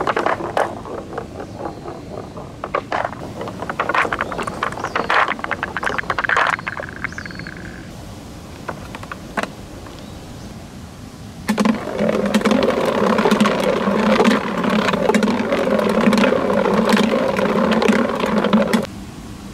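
Marble-run balls rolling and clacking down wavy ramps, with many quick knocks and clicks. About eleven seconds in, a steady buzzing rattle starts as balls roll over a ridged wooden wave slope, and it stops suddenly near the end.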